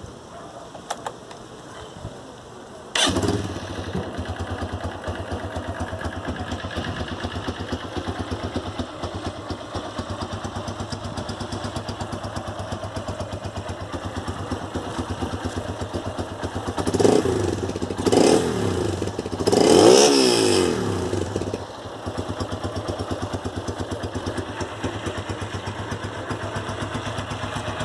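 Honda CG150 Sport's single-cylinder four-stroke engine, breathing through an adapted old Roncar Turbo aftermarket exhaust, starts about three seconds in and settles into an even idle beat. About two-thirds of the way through it is revved three times in quick succession, the third rev the longest and loudest, then drops back to idle.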